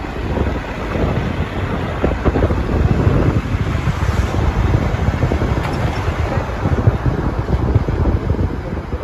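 Wind buffeting the microphone: a loud, uneven rumble and rush that rises and falls.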